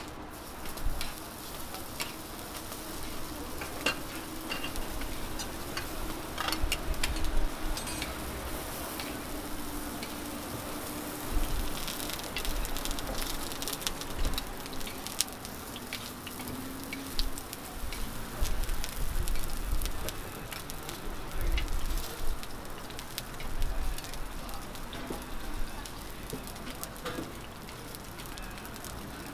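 Millet pancakes sizzling on a hot flat griddle, with frequent short clicks and scrapes of a metal spatula against the griddle. Occasional brief low rumbles come and go.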